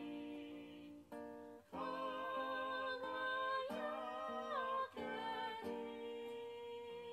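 Acoustic guitar music with a singing voice: plucked chords and held, wavering sung notes.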